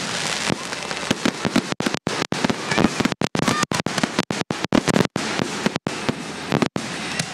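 Fireworks going off in a loud, rapid barrage of cracks and pops, with a dense crackle between the louder reports. The recording cuts out for split seconds several times.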